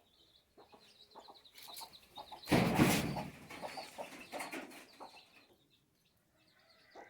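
Domestic fowl clucking, with one loud harsh squawk about two and a half seconds in that lasts about a second and fades.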